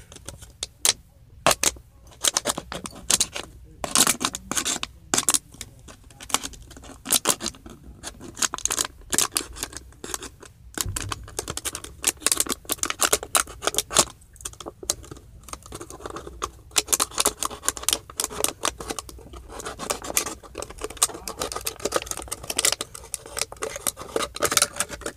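Thin plastic water bottle crinkling and crackling as it is handled and cut through with a knife, a dense run of irregular sharp crackles and scratches.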